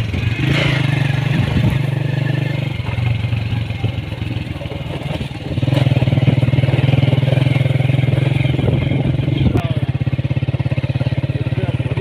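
Small motorcycle engine running while riding, a steady low beat of firing pulses that grows louder from about halfway through.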